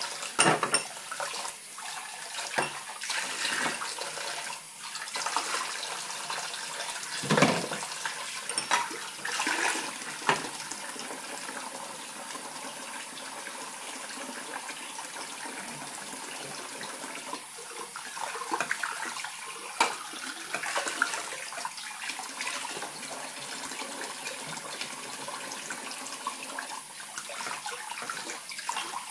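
Kitchen tap running steadily, its stream splashing into a mug and dishes in the sink, with scattered knocks and clinks of glassware and crockery being rinsed, more of them in the first ten seconds.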